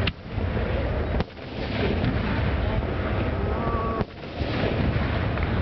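Aerial fireworks shells bursting overhead: three sharp booms, at the start, about a second in and about four seconds in, over a continuous loud crackle of the display.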